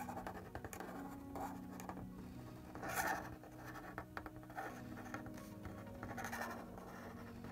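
Marker tip scratching on paper in short strokes while writing cursive letters, loudest about three seconds in and again a little after six. Soft background music plays underneath.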